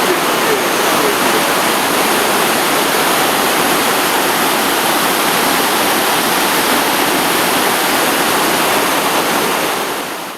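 Loud, steady rush of water cascading down a waterfall, fading out near the end.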